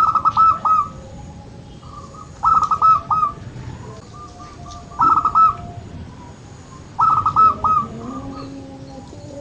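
Zebra dove (perkutut) cooing: four loud phrases of rapid staccato notes, one roughly every two to two and a half seconds, with fainter cooing in between.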